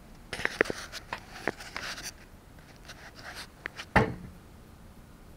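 Handling noise as the camera is moved and repositioned: a run of small clicks and rustles for about two seconds, a few faint ticks, then one sharp knock about four seconds in as it settles.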